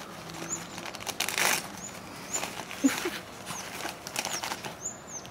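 Wrapping paper rustling and tearing as a puppy rips and tugs at it, in a string of uneven bursts, the loudest about a second and a half in.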